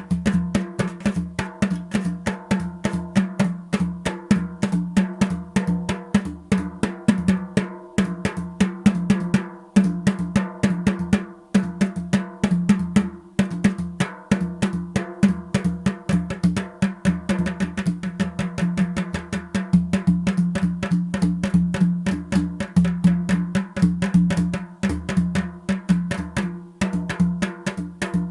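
Drumming: fast, continuous percussion with many strokes a second over a deep, ringing drum note.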